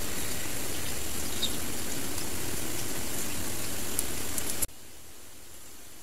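Steady outdoor background hiss with a few faint ticks. About four and a half seconds in it drops suddenly to a quieter hiss.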